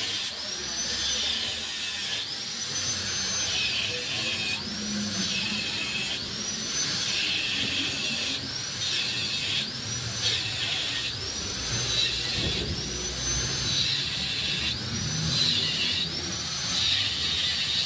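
Angle grinder with a cutting disc cutting through the rear end cap of a motorcycle muffler. Its high whine sags in pitch each time the disc bites into the metal and climbs back as the load eases, over and over every second or two.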